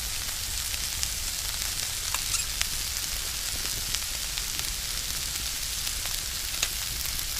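Sliced potatoes, onions and mushrooms sizzling in garlic butter in a pan over a campfire: a steady hiss with small scattered pops and crackles.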